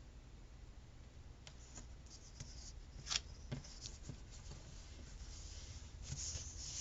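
Faint scratchy rubbing and rustling of thin paper stickers being handled and pressed down onto a planner page. A few light taps come through, the sharpest about three seconds in.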